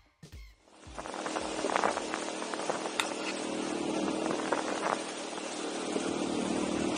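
Music cuts off at the start, then a motorcycle engine runs steadily at low speed, with riding noise from the tyres on a gravel track. A single click comes about three seconds in.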